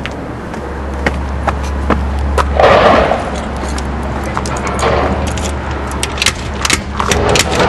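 Footsteps on pavement over a steady low rumble, with a louder rush of noise about three seconds in. Near the end, clicks and rattles as a hand works the handle and lock of a metal-framed glass entry door.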